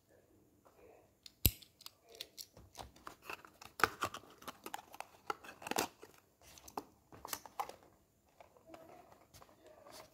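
A die-cast model car and its cardboard box being handled: a string of sharp clicks, taps and rustles, the loudest about a second and a half in, easing to softer rustling near the end.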